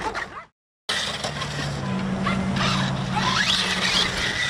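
Arrma Outcast 6S RC truck's brushless motor whining up in short throttle bursts over a steady low hum. The sound cuts out to silence for a moment about half a second in.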